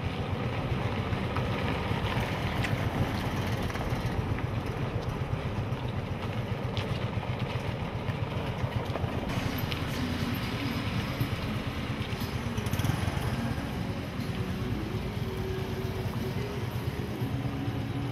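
Steady engine and road noise of a car driving, over cobblestones at first and then onto smooth tarmac, with the road noise changing a little past halfway.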